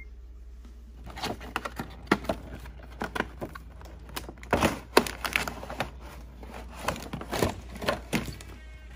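Cardboard toy box and its clear plastic tray being opened and pulled apart by hand: irregular cracking, crinkling and tearing of the packaging, with a few louder cracks about halfway through and again shortly before the end.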